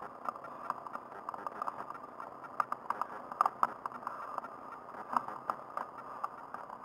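A handbike rolling along an asphalt road, rattling and clicking irregularly over a steady rush of tyre and air noise, with a few louder knocks about halfway through.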